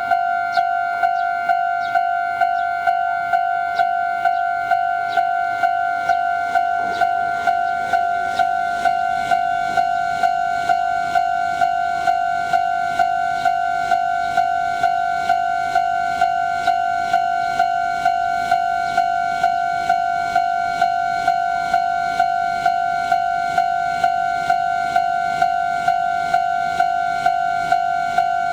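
Japanese level-crossing warning bell ringing: an electronic bell striking the same high tone over and over, about three strikes every two seconds.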